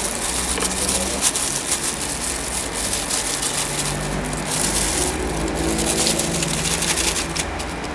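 Hand tools working on the engine's tensioner and water-pump area: rapid, dense metallic clicking and rattling, like a ratchet being worked, over a steady low workshop hum.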